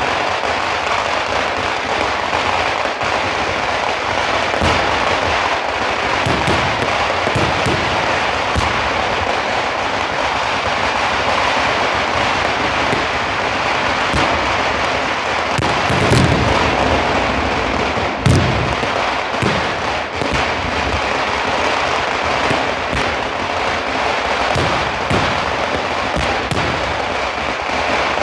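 Fireworks display going off: a dense, unbroken crackle with scattered bangs, the two heaviest about 16 and 18 seconds in.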